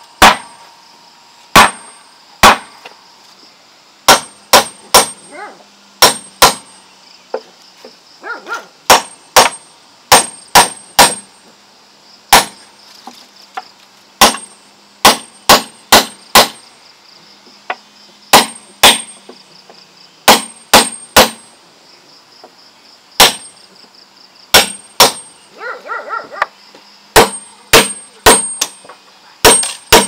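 Hammer driving steel nails into a wooden tabletop: sharp metallic strikes with a brief ring, mostly in quick groups of two to four with short pauses between.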